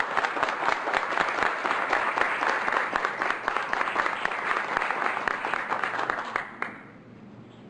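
A group of people applauding: dense clapping that dies away about six and a half seconds in.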